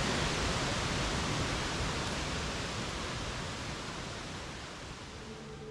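Steady rushing of a waterfall on a rocky mountain stream, slowly fading down in level.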